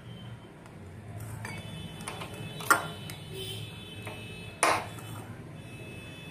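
Knife blade knocking against a ceramic bowl while cutting boiled eggs: two sharp clicks about two seconds apart, with a few fainter taps before them, over a low steady hum.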